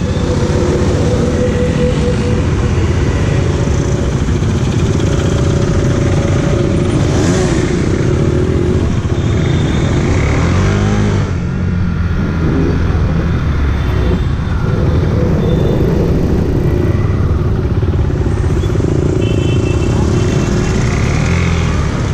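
KTM motorcycle engine running as the bike pulls away and rides in city traffic among other motorcycles; the engine revs up about ten seconds in.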